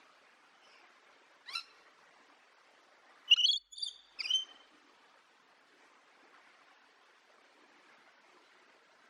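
A parrot calling: one short call about a second and a half in, then a quick run of three louder calls a little past the middle, over a faint steady background hiss.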